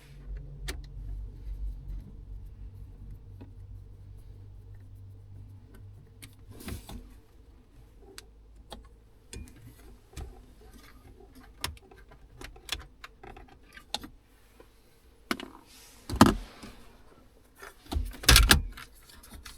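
Clicks, taps and rattles of hand tools and plastic dashboard trim as Torx screws are undone behind a car's dash panel, with a couple of louder knocks near the end. A low steady hum runs under the first half and fades out.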